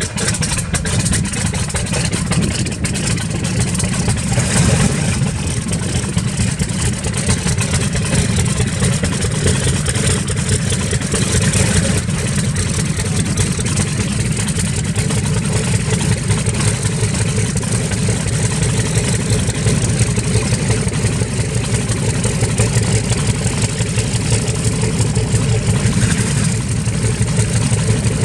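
North American B-25 Mitchell's Wright R-2600 radial engines running steadily after start-up, a loud low rumble with a fast pulsing beat.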